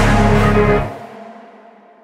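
Background music that stops abruptly about a second in, a last note fading away after it.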